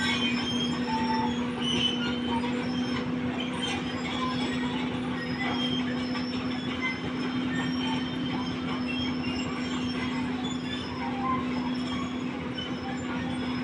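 Caterpillar tracked excavator travelling on its steel crawler tracks: the engine runs with a steady hum, over the continuous clatter of the track links and many small squeaks and clicks from the undercarriage.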